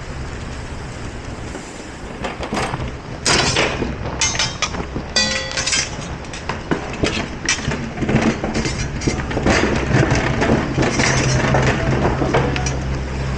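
Dishes and utensils clattering and knocking in a dishwashing area, over a steady low machine drone; the clatter picks up about two and a half seconds in.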